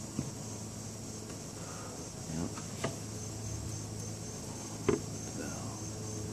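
Crickets chirping in a steady, evenly pulsing high chorus, with a few short knocks, the sharpest about five seconds in.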